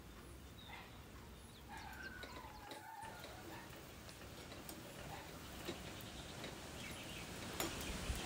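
Faint sizzling of a suji puri frying in hot oil in a wok on a gas burner, with light ticks of the ladle. A few faint bird calls sound about two seconds in.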